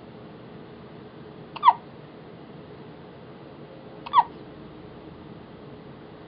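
A two-and-a-half-week-old baby hiccupping twice, about two and a half seconds apart. Each hiccup is a short, high-pitched squeak that drops slightly in pitch.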